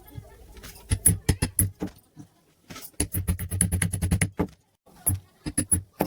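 Small metal parts clinking and clattering in irregular bursts: a few sharp clicks about a second in, a denser rattle from about three to four seconds, and a few more clicks near the end.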